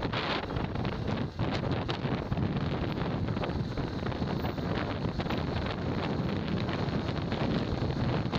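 Heavy wind buffeting the microphone of a camera on a moving road vehicle, over the steady rumble of the ride.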